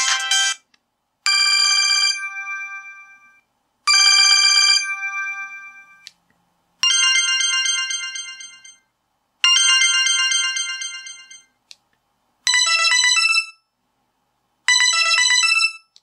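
Samsung SGH E250 mobile phone playing previews of its built-in ringtones through its small speaker: short, bright electronic melody phrases, each played twice with a fading tail and a brief gap. The tune changes twice as the selection moves down the list, to a busier, shorter phrase near the end.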